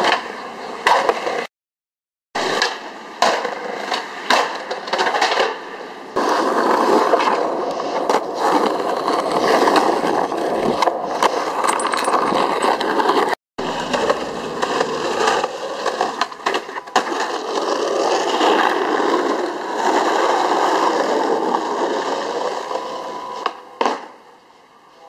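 Skateboard wheels rolling over rough asphalt, with frequent sharp clacks of the board popping and landing flatground tricks. The sound drops out twice for a moment.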